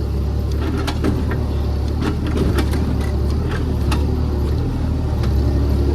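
JCB JS30 Plus mini excavator's diesel engine running steadily under load, with scattered clicks and knocks of the bucket working against laterite stone.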